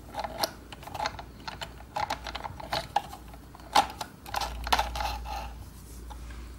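Irregular clicks, taps and cloth rustling as a mini sewing machine is handled and the freshly stitched fabric is drawn out from under its presser foot.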